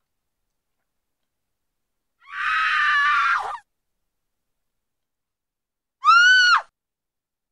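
Two high-pitched screams: a long one about two seconds in that drops in pitch as it ends, then a shorter one about six seconds in that rises and falls.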